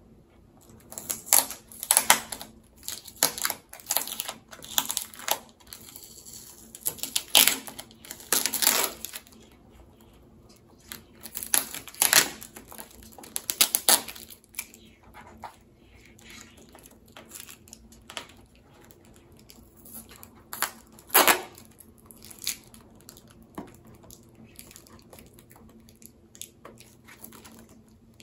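Plant packaging being opened by hand: irregular bursts of crinkling and tearing, busiest in the first half, with a last loud burst about three-quarters of the way through and quieter handling between.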